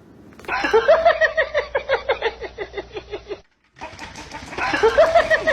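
An animal giving a fast run of short, pitched calls, about seven a second, falling slightly in pitch. The run stops abruptly about three seconds in and starts again almost identically a moment later.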